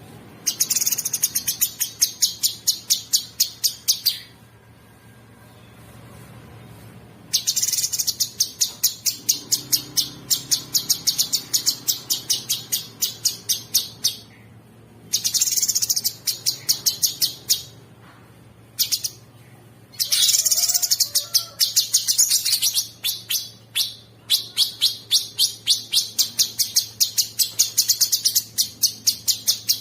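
Cucak sungkok bird singing in long, rapid, harsh chattering bursts: several phrases of a few seconds each, with short pauses between them.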